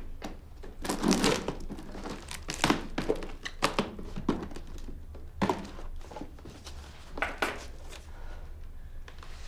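Crinkling and rustling of wrapping being handled and crumpled, in irregular short bursts, the loudest about a second in and again near three seconds in.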